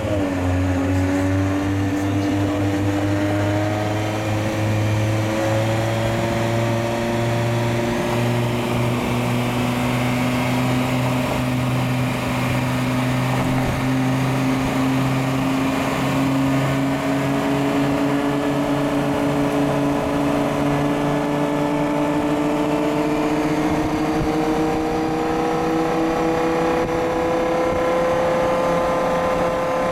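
Car engines at a steady low-speed roll, including the BMW M6's V10 with aftermarket exhaust running alongside. The main engine note holds one pitch and climbs slowly and evenly as the cars gather speed. A deeper steady hum fades out about two-thirds of the way through.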